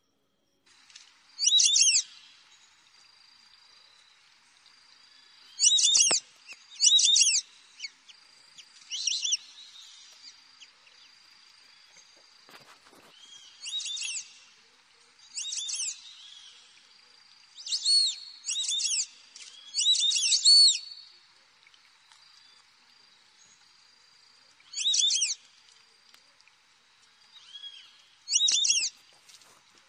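Short, high chirping animal calls, about a dozen at uneven intervals of one to five seconds, some in quick pairs, over a faint steady high whine.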